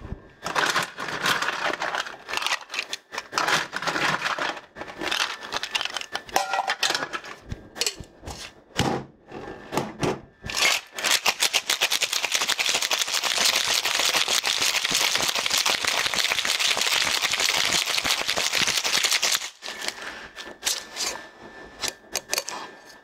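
Ice and metal cocktail shaker tins clinking and knocking in scattered strokes, then a hard shake of about eight seconds with ice rattling fast inside the tins, the first, with-ice shake of a reverse dry shake. Lighter clinks follow near the end as the tins are handled.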